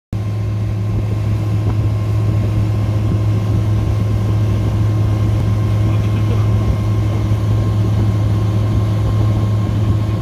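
Suzuki 200 hp outboard motor running steadily at speed, a low even drone, with water rushing and splashing past the hull.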